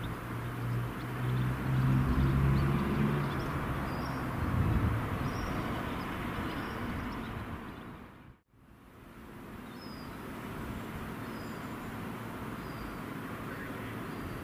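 A passing train's locomotive running with a steady low hum that fades away over the first several seconds. After an abrupt cut, steady outdoor background noise remains, with birds chirping faintly.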